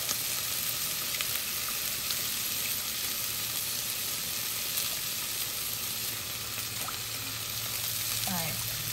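Creamy gravy sizzling in a hot stainless steel saucepan as it is stirred with a silicone-coated whisk: a steady hiss with a few faint ticks.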